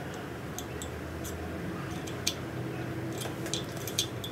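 Faint, irregular light metallic ticks and clicks as a Heli-Coil inserting tool is turned by hand, winding a coil thread insert into a tapped hole in an aluminium Dell'Orto carburettor body, over a steady low workshop hum.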